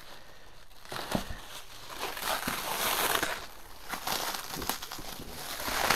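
Plastic stretch wrap being pulled and peeled off a boxed heat press, crinkling and crackling in uneven bursts, loudest in the middle and near the end.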